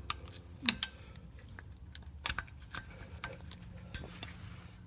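Scattered sharp clicks and taps of a plastic trim tool working against the rear brake caliper pistons as they are pushed back into their cylinders; the loudest come just under a second in and just after two seconds.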